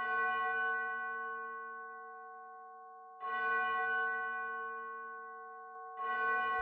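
A bell-like chime struck three times on the same note, about three seconds apart, each stroke ringing out and slowly fading.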